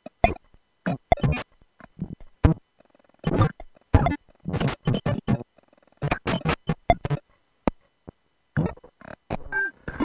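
Glitchy experimental electronic noise from a modular synthesizer slicing up recordings of circuit-bent audio gadgets. It comes as short, noisy, buzzing bursts at irregular intervals, each cut off abruptly into silence.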